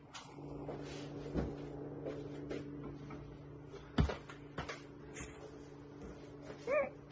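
Room tone with a steady low electrical hum, broken by a few soft knocks and taps, the sharpest about four seconds in. Near the end comes a short, high, wavering chirp.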